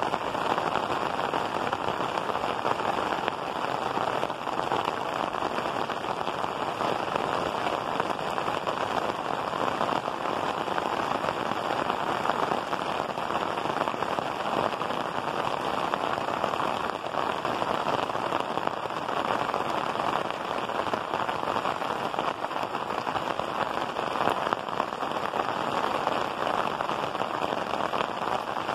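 Heavy rain pouring down on clay-tiled roofs, a dense, steady hiss.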